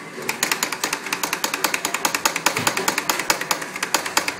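Doser lever of an espresso grinder being flicked rapidly, a fast even clacking of about seven clacks a second, as ground coffee is dosed into a portafilter.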